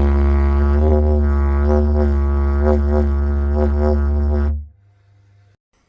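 Didgeridoo playing a steady low drone, its overtones shifting and sweeping as it is played, cutting off sharply about four and a half seconds in.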